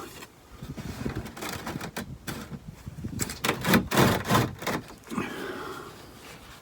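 Work noises under a car during an oil change: a rapid, irregular run of clattering knocks and scrapes, then a softer steady rushing sound near the end.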